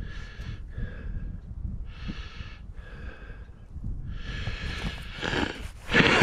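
A man breathing hard close to the microphone, short hissing breaths about once a second, then longer, louder ones near the end, over a low rumble of handling and wind on the microphone.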